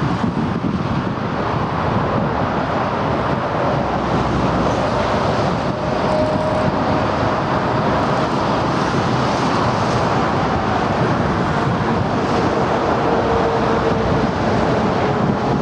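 Boeing 747-8's four jet engines on final approach: a steady, loud rushing noise with a faint whine that slides slowly lower as the airliner passes.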